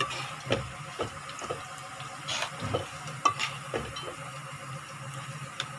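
Steel spoon stirring soya chaap in thick gravy in a metal pot, with irregular clinks of the spoon against the pot, roughly every half second. A low steady hum runs underneath.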